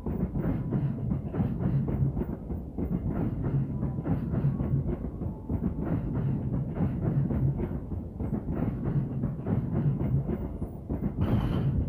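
Passenger train coaches rolling past at a station platform, their wheels clacking rhythmically over the rail joints, with a brief hiss near the end.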